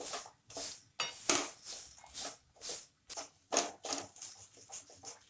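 Spatula scraping and stirring pieces of jaggery around a steel kadhai in short, rhythmic strokes, about two a second. The jaggery is just starting to melt on a slow flame.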